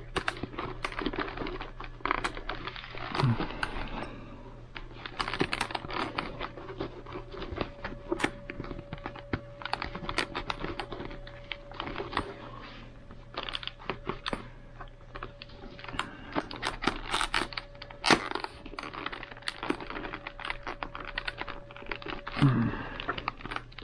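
Scratchy rustling and many small clicks of a motorcycle helmet's foam-and-fabric cheek pad and plastic shell being handled and pushed back into place.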